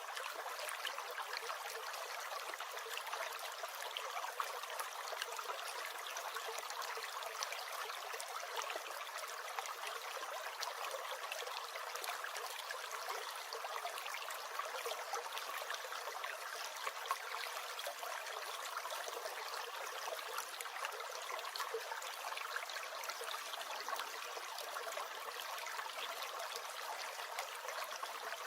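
A stream gurgling and trickling steadily over its bed, with no deep rumble beneath it.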